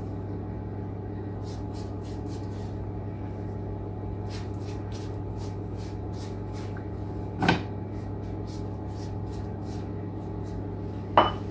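A silicone pastry brush dabbing oil onto a sheet of samosa dough in soft, quick strokes, over a steady low electrical hum. Two sharp knocks, one about halfway through and one near the end.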